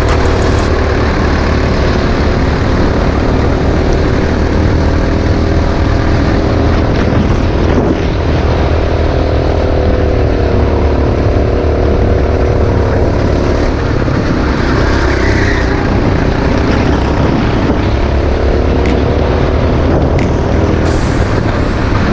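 Go-kart engine heard from onboard, running hard through a lap, its pitch rising and falling a little as the throttle comes on and off through the corners.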